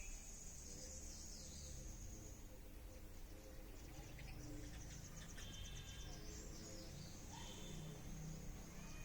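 Outdoor ambience: a high, fast-pulsing insect trill that comes and goes, a few short bird chirps, and a low rumble of wind.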